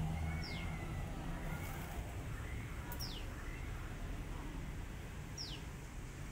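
A bird calling three times, about two and a half seconds apart: each call a short, high note sliding quickly downward, over a steady low background rumble.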